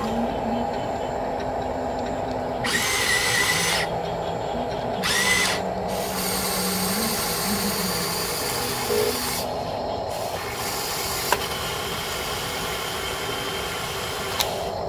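Electric motors and gearboxes of a Huina 1580 full-metal RC excavator whirring in stretches that start and stop as the boom, arm and swing are worked. There are two short sharp clicks in the second half.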